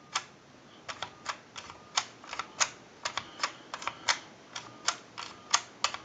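Telephone push-button keypad being pressed key after key to dial a number. Each key gives a sharp plastic click, often a close pair on press and release, with faint dialling tones between them.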